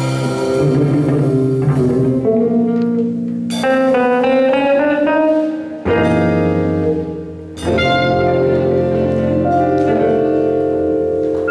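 Gypsy-jazz band of acoustic guitar, double bass, drums and keyboard playing the held closing chords of a tune. Fresh full-band hits come about three and a half, six and seven and a half seconds in, each sustained and left to ring.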